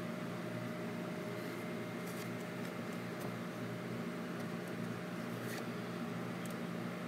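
A steady mechanical hum with a faint whine, like a fan or appliance running. A few faint, short papery ticks come as a stack of Polaroid photo prints is shuffled by hand.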